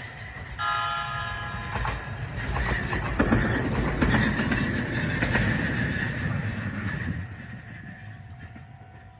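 A train sounds its horn once for about a second shortly after the start, then passes with its wheels clattering over the rail joints, loudest in the middle and fading away near the end.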